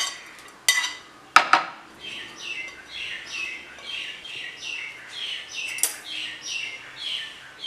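A steel spoon clinks twice against a plate and bowl, the second strike the loudest, about a second in. A bird then chirps over and over, short slightly falling calls at about two a second.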